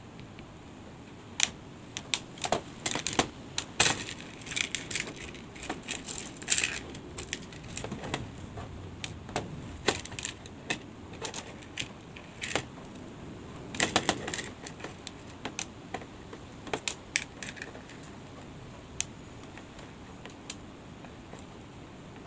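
Small coloured seashells clicking and rattling against a plastic plate and bowl as they are picked up and set down, in irregular clusters of sharp clicks that thin out over the last few seconds.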